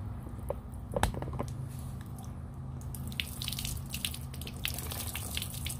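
Water pouring out of a plastic water bottle and splashing onto concrete, with a dense patter from about three seconds in. A few sharp clicks of the plastic bottle being handled come about a second in.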